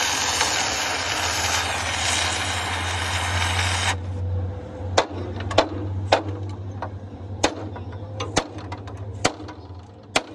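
Gas torch flame roaring as it heats a rivet on a steel truck chassis rail, cutting off abruptly about four seconds in. After that come about seven sharp, irregular metal clinks and knocks as tools are set against the frame, over a low steady hum.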